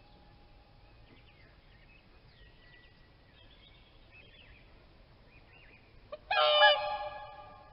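A swan giving one loud honking call about six seconds in, which trails off over a second or so; faint small-bird chirps are heard before it.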